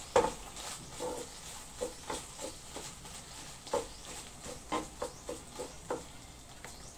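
Wooden spoon stirring shrimp paste in a stainless steel pan, knocking and scraping against the metal in irregular strokes, the sharpest just after the start.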